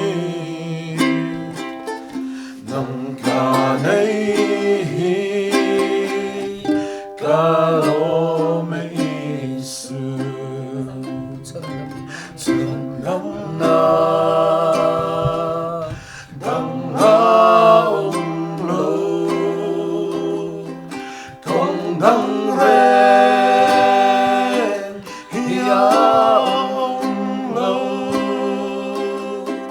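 A song sung with a strummed acoustic string instrument accompanying, the voice holding long notes with vibrato between short pauses.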